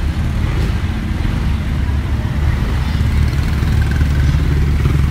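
Motorcycle engine idling with a steady low hum, with street traffic around it.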